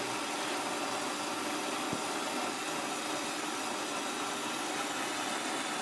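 Handheld gas torch burning with a steady hiss as it heats the small end of a connecting rod, expanding it so the piston pin can be pressed in. One faint click about two seconds in.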